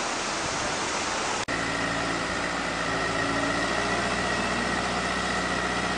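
A steady rush of wind and surf. After a cut about a second and a half in, a wheel loader's diesel engine is heard running steadily.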